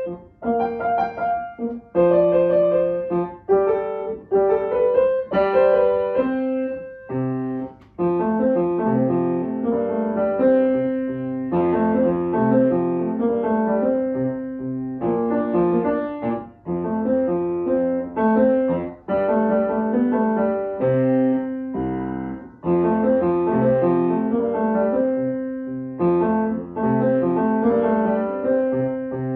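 Grand piano being played solo: a piece of chords and running notes in phrases, with brief pauses between them.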